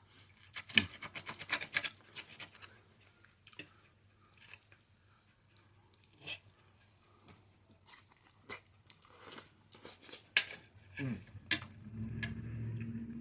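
Close-up chewing and wet mouth clicks of a person eating stuffed cabbage rolls, in irregular bursts with quiet gaps. A low, steady hum comes in near the end.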